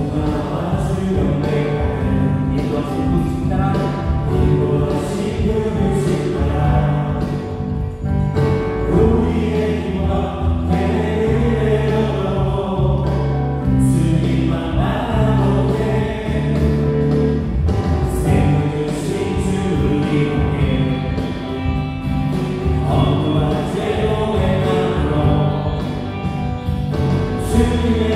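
Live church worship band playing a gospel praise song on electric guitar, bass guitar, keyboards and drums, with voices singing together over it.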